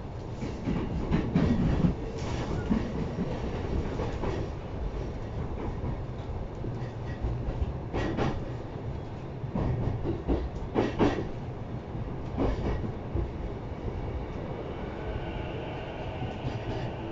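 Running sound inside a JR East E233 series 0-subseries electric commuter train: a steady rumble of wheels on the rails, broken by knocks from rail joints at uneven intervals, with a faint whine joining near the end.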